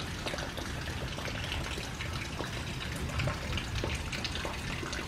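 Steady rain falling, with many small drops tapping close by.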